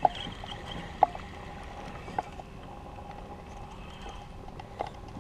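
Small water ripples lapping against a kayak hull, with a few short, light knocks.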